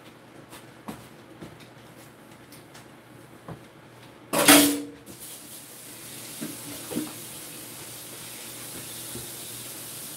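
Small kitchen clicks and knocks, then about four seconds in a loud clatter of kitchenware with a brief ringing tone. After it a kitchen tap runs with a steady hiss.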